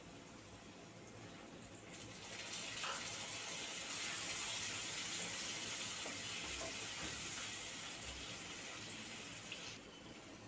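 Water being poured into a kadhai of fried basmati rice, a steady pouring rush that starts about two seconds in and stops suddenly near the end.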